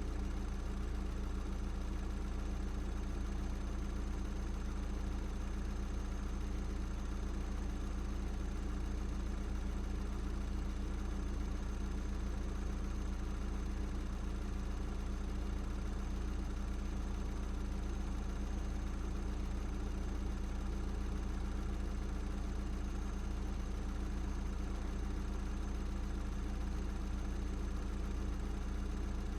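Audi S3 8P's turbocharged 2.0 TFSI four-cylinder idling steadily, breathing through an aftermarket downpipe.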